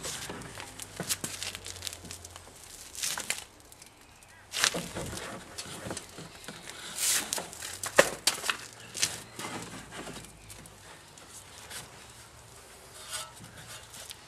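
Scattered clicks, scrapes and rustles of hand work in the engine bay as the ribbed drive belt is worked back onto its pulleys, with a few sharper knocks partway through.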